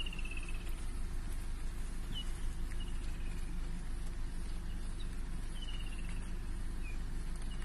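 Vehicle engine idling with a steady low rumble, while a bird calls about four times, each a short trill falling in pitch.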